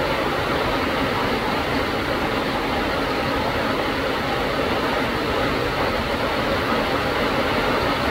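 Heavy rain, a steady downpour on trees and foliage.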